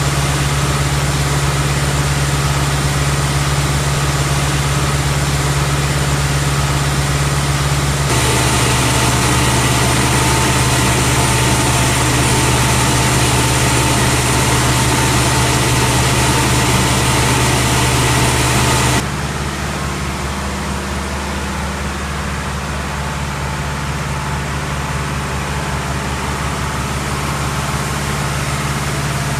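A Kongskilde pneumatic grain suction blower and the Deutz-Fahr tractor powering it run together as a loud, steady machine drone with a held hum and fan whine. The sound shifts in tone about 8 seconds in and gets somewhat quieter about 19 seconds in.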